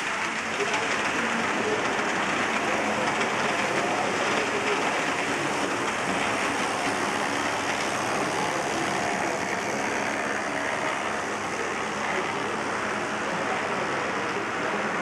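Steady rolling noise of model trains running on a large layout, mixed with a murmur of visitors' voices in the hall.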